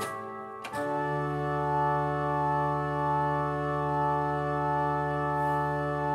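Organ closing a fugue: a change of chord about a second in, then the final chord held for about five seconds with a deep bass note, released near the end into a short echo of the room.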